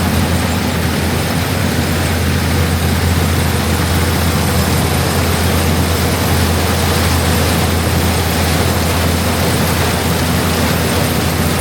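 Heavy farm machinery running steadily, with a constant low engine hum and a broad mechanical rush over it that does not change in speed or load.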